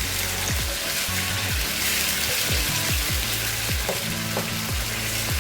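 Tomatoes and capsicum sizzling as they fry in a pan, under background music with a steady bass beat.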